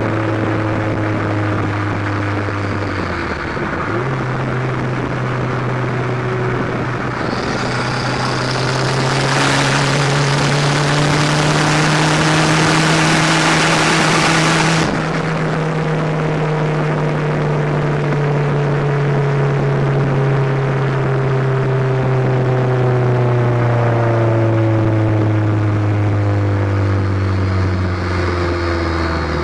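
Exhaust of a Dodge Aries with a turbocharged Shelby Z four-cylinder, heard from a microphone under the car at the trailer hitch while driving. About four seconds in the engine note dips briefly and comes back higher, then climbs slowly and falls off again, dropping faster near the end. A loud rushing hiss joins about eight seconds in and cuts off suddenly about halfway through, as the engine starts to ease off.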